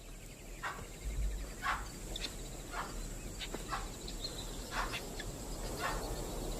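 Wild prey animals giving alarm calls: about eight short, sharp calls at irregular intervals, the sign that a stalking lion has been spotted. A steady high insect chirring runs underneath.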